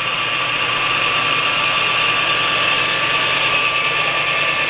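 13-inch by 40-inch geared-head lathe running under power with its power cross feed engaged: a steady whine from the gearing over a continuous mechanical rattle.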